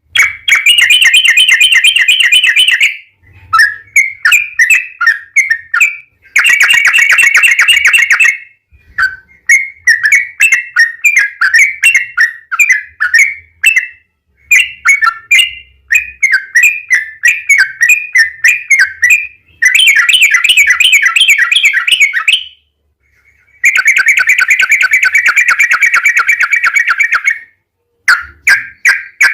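Yellow-vented bulbul (trucuk) singing loudly: long rapid rattling trills of fast-repeated notes alternate with bubbly chattering phrases, with short pauses between them.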